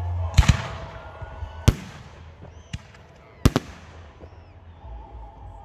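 Aerial fireworks shells bursting overhead: a sharp double bang about half a second in, another bang under two seconds in, a double bang past the middle and one more at the end, with faint crackling between.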